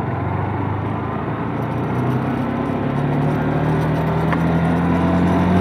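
Motorcycle engine pulling away from a standstill and accelerating, heard from the bike itself, its pitch climbing slowly and its sound growing a little louder from about two seconds in.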